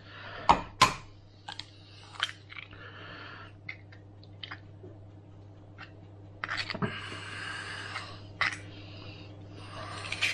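Kitchen utensils and dishware knocking and clinking: two sharp clicks near the start, scattered lighter ticks and a couple of short scraping passages, over a steady low hum.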